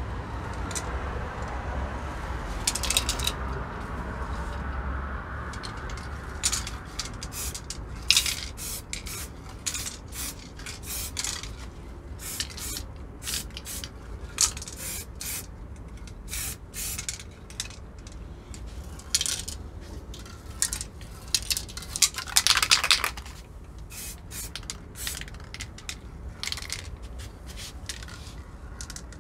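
Aerosol spray can of metallic paint in use: short hissing bursts of spray and the clatter of the can's mixing ball, with a longer spray pass late on. This is the final colour coat going onto a plastic part.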